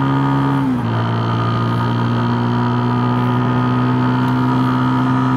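Unique Tornado 150 motorcycle's single-cylinder 150cc engine running at a steady cruise, over a steady rush of wind and road noise. The engine note drops slightly just under a second in, then holds steady.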